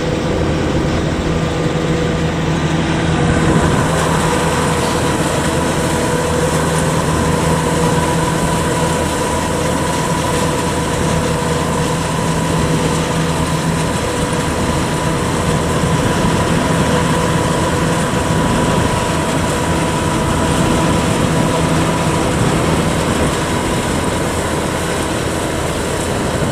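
Kubota DC105X combine harvester's diesel engine running steadily under load as it harvests rice, with the drone of its threshing and cutting machinery. About three and a half seconds in the sound shifts, and from then on a thin, steady whine rides over the drone.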